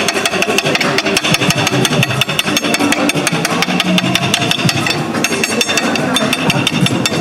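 Steel knife and fork clattering fast and without a break against a ceramic plate as beef carpaccio is chopped at the table, over background music.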